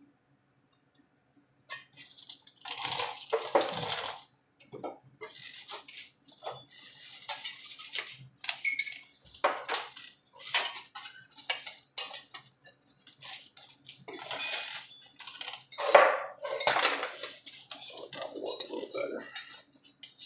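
Sheet metal and metal tools being handled, in irregular clanks, clinks and scrapes.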